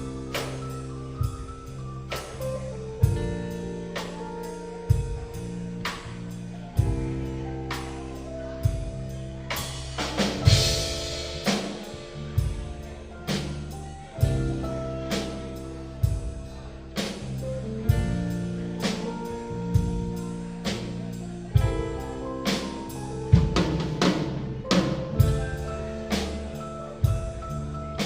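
Live rock band playing an instrumental passage: a drum kit keeps a steady beat, roughly a hit a second, under held chords and bass notes, with a cymbal crash about ten seconds in.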